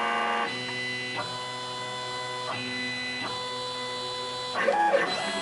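Sieg KX1 CNC mill's stepper motors whining as the axes drive a drag knife around a label outline in laminated film. The whine holds a steady pitch on each straight move and steps to a new pitch as the tool path changes direction, about every second, with a quicker flurry of changes near the end.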